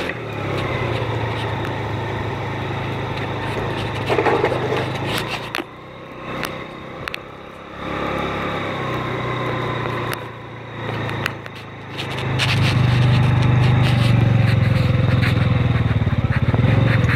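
Small motor scooter's engine running under the rider, heard from the seat. It drops to a quieter low run with a few short throttle blips for several seconds in the middle. Then it pulls away louder and steadier for the last few seconds.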